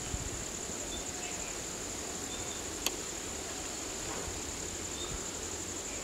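Steady high-pitched drone of insects, with a single sharp click about halfway through.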